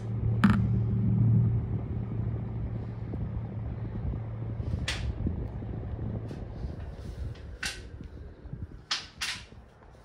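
Socket-mounted mini ceiling fan with a brushless DC motor running, a steady low hum that fades away over the last few seconds. Several sharp clicks or knocks land over it: one about half a second in, one about halfway, and three more near the end, two of them close together.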